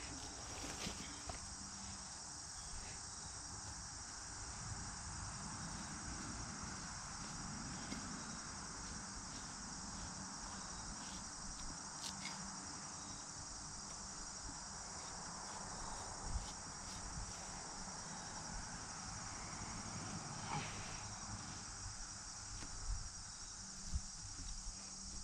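A steady, high-pitched chorus of insects chirring in the background. Over it come faint, occasional light scrapes and clicks as a skinning knife slices meat off a deer hide on a fleshing beam.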